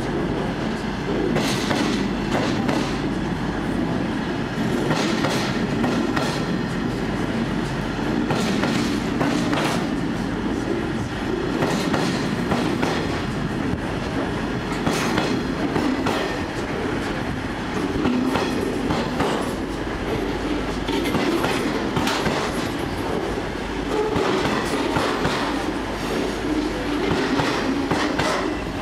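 Loaded open box wagons of a freight train rolling past, a steady rumble broken by irregular clicks and clunks as the wheels pass over rail joints.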